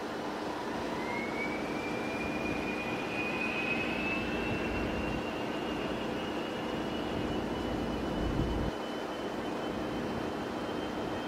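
Twin-engine business jet's turbofans running with a high whine that climbs steadily in pitch. A low rumble underneath builds and then cuts off suddenly about eight and a half seconds in.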